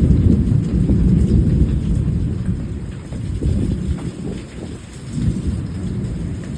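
Sudden heavy tropical downpour, with a loud low rumble that swells and eases, dipping for a moment about two-thirds through.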